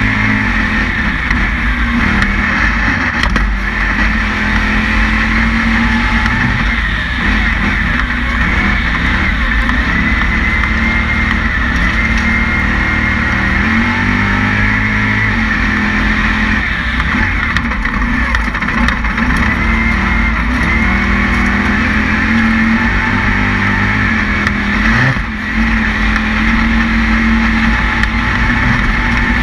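Resleeved 427ci aluminum LS-based V8 of an Ultra4 off-road race car running hard under racing load, its pitch rising and falling as the throttle and gears change. Heard from a camera mounted on the hood, the sound dips briefly about three-quarters of the way through.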